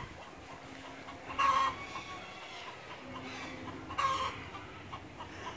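A chicken giving two short calls about two and a half seconds apart, over a faint steady background. There is a brief click right at the start.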